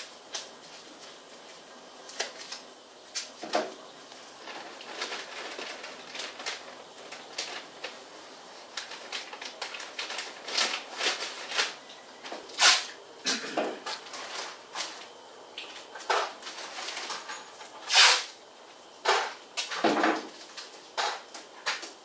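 Irregular short rustles and crinkles of plastic masking sheet and tape being handled on a car body, with a few louder sharp bursts, the loudest about a third and four-fifths of the way through.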